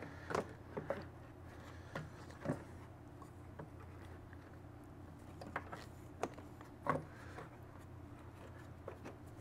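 Faint, scattered clicks and taps of a carburetor and throttle cable being handled and fitted into the plastic housing of a Stihl BR800 backpack blower, with two slightly louder knocks about two and a half and seven seconds in.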